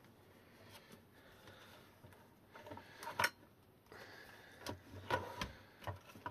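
Hard plastic e-bike battery case and cell pack being handled on a workbench: quiet rubbing, then a handful of sharp plastic clicks and knocks in the second half, the loudest a little past halfway.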